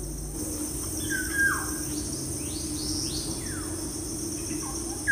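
Birds chirping, with a handful of short sliding calls, over a steady high-pitched insect drone.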